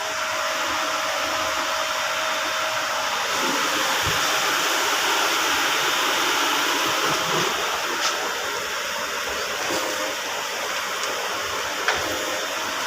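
A machine running with a steady rushing hiss and a faint steady hum, with a few light clicks, the sharpest near the end.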